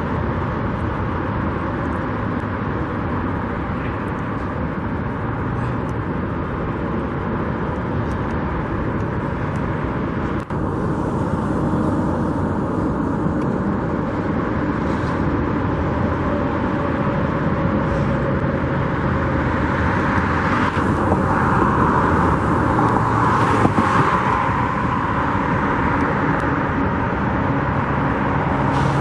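Steady road traffic: cars passing at speed, swelling louder for a few seconds about two-thirds of the way in as a vehicle goes by close.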